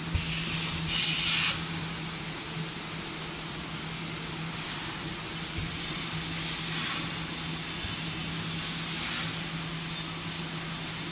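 Automatic cup packing machines and their conveyor running: a steady machine hum with a constant low drone, with a brief hiss about a second in and fainter hisses later.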